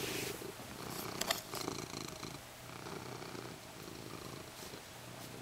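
Domestic cat purring steadily, with a couple of soft clicks about a second in.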